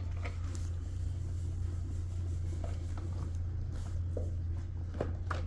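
A steady low hum under faint, scattered ticks and rustles of hands working yarn with a crochet hook.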